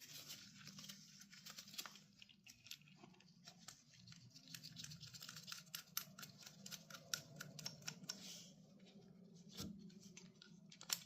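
Faint, irregular light clicks and taps of small steel parts being handled and fitted together: the pieces of a motorcycle chain riveting tool.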